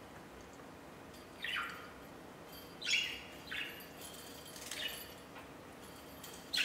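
Budgerigar chirping: about five short calls spread over the few seconds, each a quick falling sweep.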